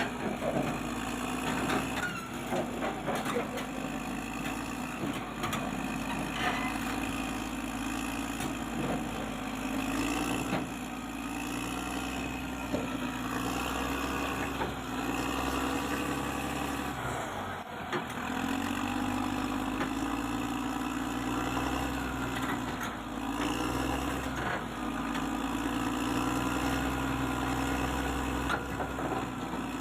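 Heavy diesel engine running steadily, with a few short clanks and a brief dip in the sound about two-thirds of the way in.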